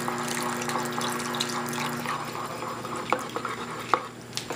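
Water poured from a glass measuring jug into a pot of chicken curry, splashing steadily for about two seconds to thin the gravy. Then a spatula stirs the pot, with a few light knocks against the pan.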